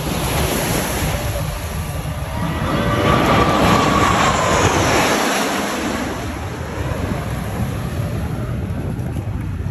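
Navy Blue Angels F/A-18 Super Hornet jets passing low in formation: a loud jet roar that swells to a peak about three to five seconds in, with a whine falling in pitch as they go by, then eases off.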